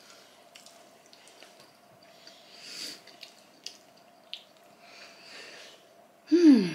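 Close-up eating sounds: soft chewing and mouth noises with small clicks, over a faint steady hum. Near the end a short, loud vocal sound falling in pitch.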